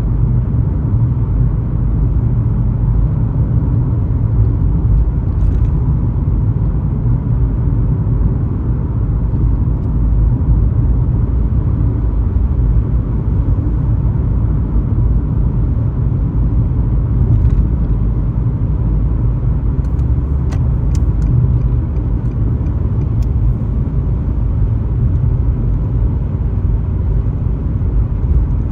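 A car driving on a highway: a steady, low rumble of road and engine noise with no changes.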